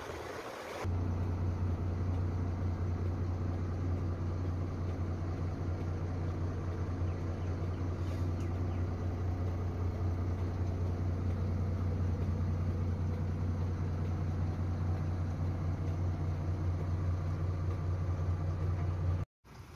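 Truck's diesel engine idling steadily: a low, even hum heard from inside the cab. It starts abruptly about a second in and cuts off abruptly near the end.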